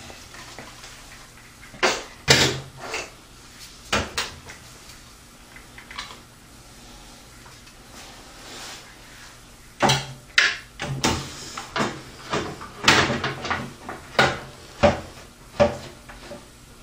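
Knocks and clunks of a Corsair H100 radiator being handled against a computer case's metal fan mount while its screw holes are lined up. A few knocks come in the first four seconds, then a busier run of them from about ten seconds in.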